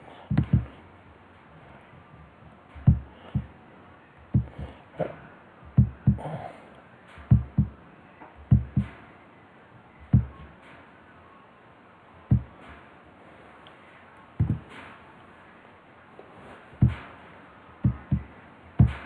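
Clicks of a computer mouse and keyboard while drafting: short sharp clicks at irregular intervals, several in quick pairs.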